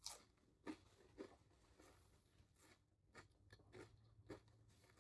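Faint close-miked chewing: soft, wet mouth clicks and small crunches, about one every half second to second.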